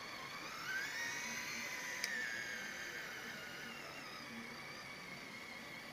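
Electric drive motor and gearbox of a radio-controlled model truck whining under throttle, the pitch rising quickly in the first second, holding, then sinking slowly. A single sharp click about two seconds in.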